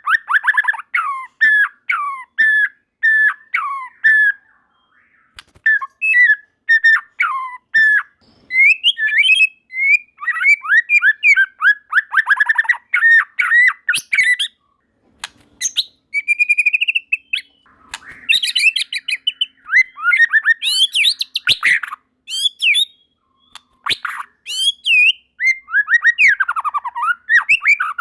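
White-rumped shama singing a rapid, varied song of whistled notes, quick falling and rising glides and chattering trills, broken by a couple of short pauses.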